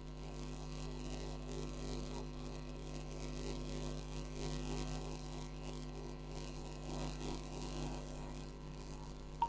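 A steady low electrical hum with nothing else standing out.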